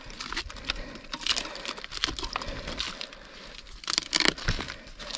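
Irregular rustling, crunching and crackling with no motorbike engine running.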